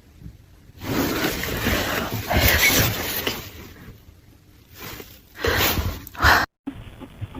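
Loud crashing and rattling of things shaken during an earthquake, with the sound of something breaking: one long crash lasting a few seconds, then three shorter bursts, cut off abruptly near the end.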